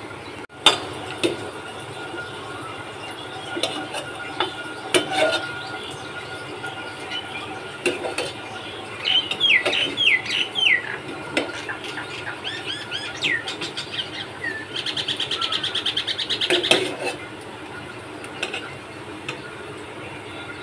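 A metal strainer-ladle clinking and scraping against a steel cooking pot as whole spices are scooped out of simmering sugar syrup. Birds chirp in the background, with a few quick falling chirps a little under halfway through and a fast trill about three-quarters of the way through.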